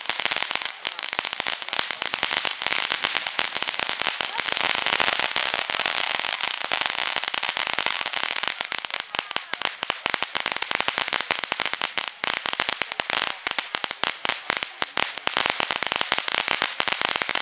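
Consumer ground fountain fireworks spraying sparks: a loud, continuous hiss packed with rapid crackling pops, which turn into more separate, distinct cracks from about nine seconds in.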